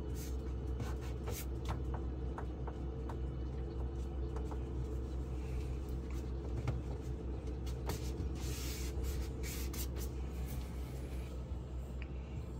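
GE Profile French-door refrigerator running with a steady low hum, just powered up after its fresh-food evaporator fan motor was replaced. Scattered light clicks and taps, and a short rustle about two-thirds through.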